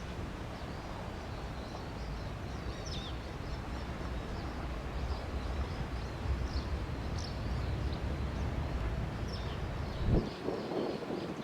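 Strong wind buffeting the microphone as a steady low rumble, with small birds chirping over it. About ten seconds in, the rumble drops away and a brief louder rustle comes in.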